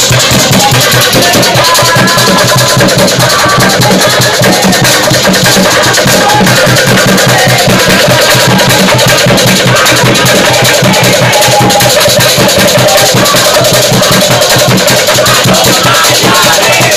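Loud music with a fast, steady drum beat and a group of voices shouting along.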